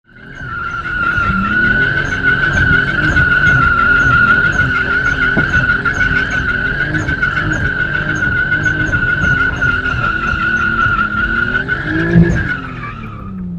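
A car drifting: tyres squeal steadily over an engine held at high revs, its pitch wavering up and down. Near the end the squeal fades and the engine revs fall away.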